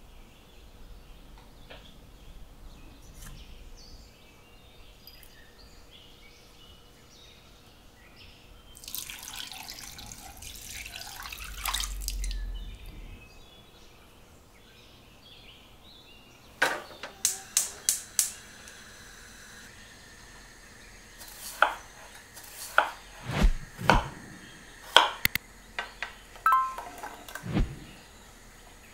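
Water running from a tap for a few seconds, then a kitchen knife chopping potatoes into cubes on a wooden cutting board: a quick run of sharp knocks, then more spaced strokes.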